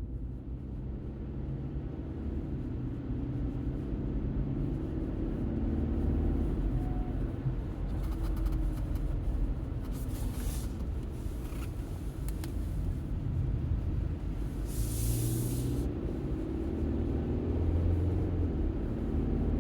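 Cabin sound of a 2024 BMW X3 20i xDrive accelerating through the gears, engine and road noise climbing, with a brief high chirping squeak about six seconds in and again near the end. The squeak comes on acceleration, mostly at the 4th-to-5th and 6th-to-7th upshifts; its cause is unknown, and two workshops heard it but could not fix it.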